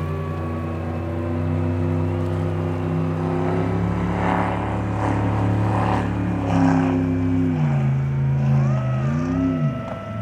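A motor drone made of several steady tones with a higher whine above them, which dips and rises in pitch twice near the end.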